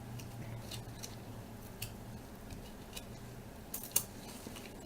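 A foil trading-card pack being opened and its cards handled: scattered faint clicks and crinkles, the loudest pair about four seconds in, over a low steady hum.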